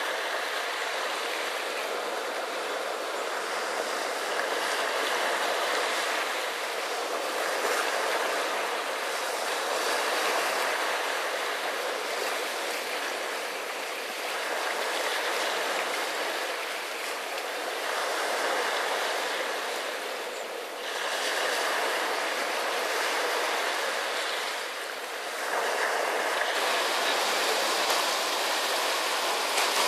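Small waves breaking and washing up the shore, the surf swelling and easing every few seconds. For the last few seconds the surf is a little louder as it washes over rounded beach cobbles.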